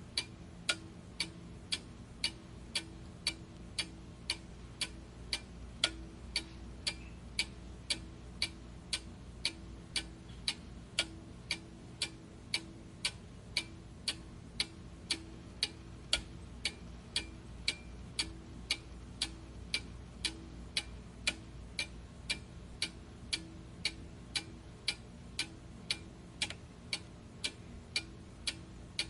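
Clock ticking steadily, about two ticks a second, with a faint low hum underneath.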